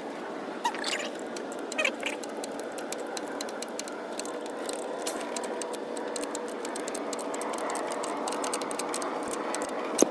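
Small clicks and rattles of parts and hand tools being handled while a replacement alternator is fitted and its wiring connected, over a steady hiss, with one sharp click near the end.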